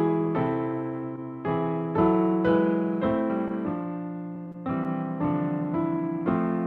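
Slow, quiet instrumental music: chords struck every half second to a second and a half, each left to ring and fade.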